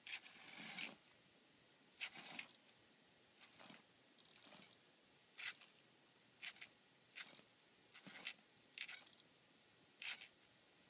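Tekin ROC 412 brushless RC motor run in short throttle bursts, about ten in all, roughly one a second. Each burst has a high thin whine and the motor's knocking, which the owner is hoping a firmware downgrade will cure.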